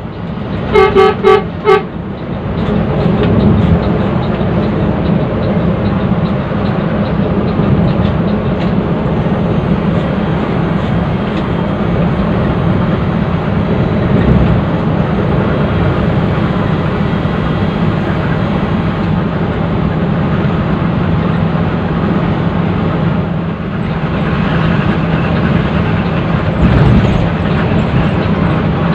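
A bus horn sounding in about four quick blasts on one steady pitch about a second in, followed by the steady engine and road noise of the bus heard from inside its cabin.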